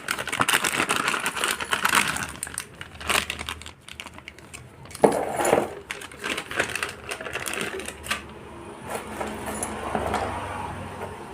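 Plastic packaging of a new motorcycle timing chain kit being cut open and handled, with crinkling and a run of clicks and clinks from the small metal parts. A single sharp clink about five seconds in, then lighter scattered clicks.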